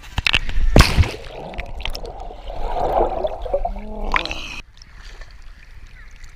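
Sea water splashing and sloshing against a waterproof camera as it is dipped in and out of shallow water, with loud splashes about a second in and underwater gurgling a little later. The sound drops off suddenly about two-thirds of the way through.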